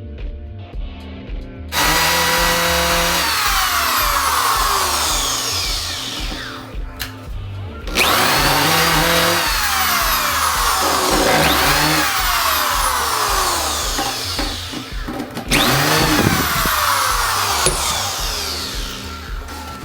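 Power drill running in three long bursts of several seconds each, over background music with a steady beat.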